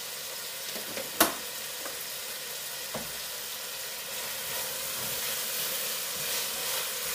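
Chopped vegetables (onion, tomato and pepper) sizzling in a stainless steel pot as salt is sprinkled in, a steady frying hiss that grows a little louder after the middle. A single sharp knock about a second in, and a lighter tap a couple of seconds later.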